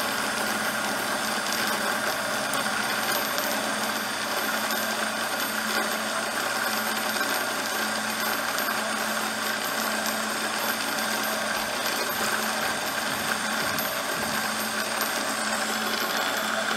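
Cuttermaster MG-30 end mill grinder running with no wheel on: the steady hum of its 1/3 hp motor under the even hiss of compressed air feeding the air-bearing collet work holder.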